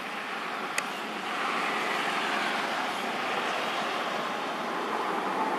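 A steady rushing background noise, like passing traffic or wind, that grows louder about a second in. There is a single sharp click just before it swells.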